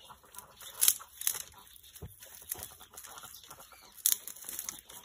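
Dry brushwood twigs rustling and crackling as they are handled and twisted into bundles for firewood, with sharp snaps about a second in and again near four seconds.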